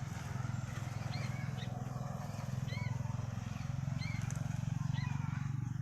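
Sooty-headed bulbul (kutilang) calling, short arched chirps repeated about once a second, over a loud steady low rumble.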